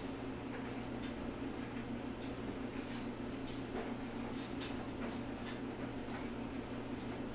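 Laundromat room tone: a steady low electrical and machinery hum, with scattered faint ticks.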